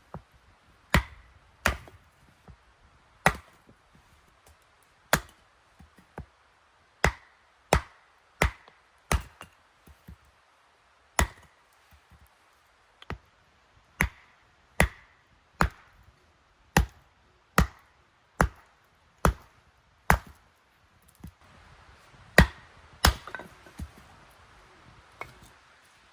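Firewood being chopped and split: a long run of sharp, separate chopping strikes, about one a second, some in quick pairs.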